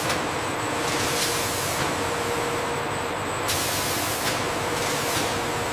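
Steady hiss of factory machinery, with a faint steady tone beneath it; the hiss grows brighter about three and a half seconds in.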